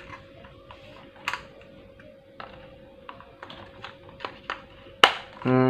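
Plastic clicks and taps from handling a power strip and a stiff mains plug being pushed into its socket, with one sharp loud click about five seconds in as it seats. A faint steady tone runs underneath, and a short low hum comes right at the end.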